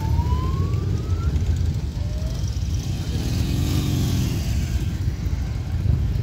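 A slow parade of Harley-Davidson motorcycles rumbling past close by, a steady low engine drone from many bikes. About three seconds in, one engine revs up and falls back.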